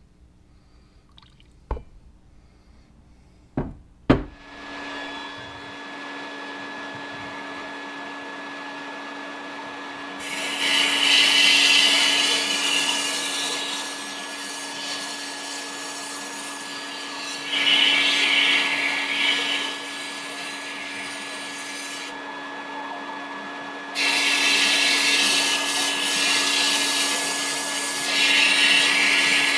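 Sandblasting: a few clicks, then a motor switches on and runs with a steady hum, and a loud hiss of abrasive blasting comes in over it, stops for a couple of seconds about three-quarters through, and starts again.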